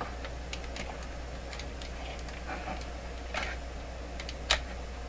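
Scattered light clicks and plastic handling noises from a test probe and handheld multimeter being worked against a plug-in outlet, with one sharper click about four and a half seconds in, over a steady low hum.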